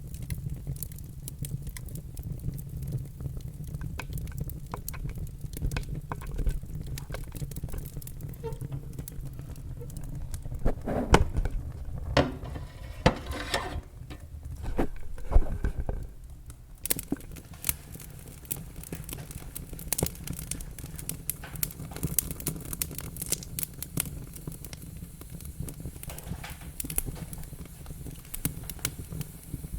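Wood fire in a fireplace crackling and popping over a steady low rumble, with a cluster of louder pops near the middle.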